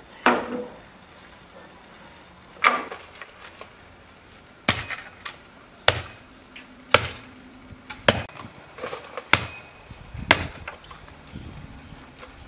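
Dry wooden sticks and branches being snapped for firewood: about eight sharp woody cracks, one every second or so, with a few smaller cracks between them.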